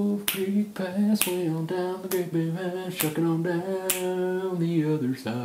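A song sung without instruments, one voice holding and gliding between notes, with finger snaps keeping the beat about once a second.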